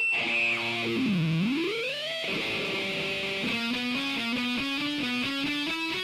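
Electric-guitar rock music: a note swoops down in pitch and back up, then a fast, evenly picked riff starts about three and a half seconds in.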